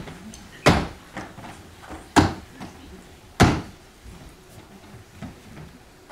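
Three loud thumps, about a second and a half apart, with lighter knocks and shuffling between them as folding chairs are handled and set down on a stage floor and performers take their seats.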